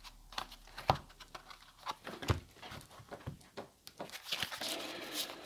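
A deck of oracle cards being leafed through by hand: a string of soft, irregular card flicks and taps as the deck is searched for one card.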